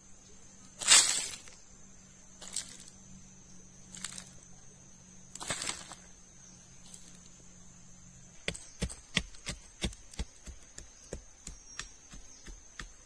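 A wooden digging stick worked into hard red soil to dig a hole: a few scraping strokes, the first about a second in the loudest, then from about eight seconds in a quick run of short sharp knocks, about three a second, as the stick is jabbed into the ground.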